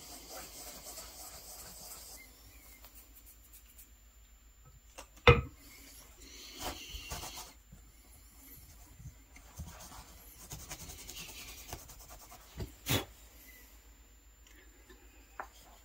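Fingers rubbing coffee into the kolrosing cuts of a wooden spatula: a faint scratchy rubbing of hand and grounds on wood. Two sharp knocks stand out, one about five seconds in and one about thirteen seconds in.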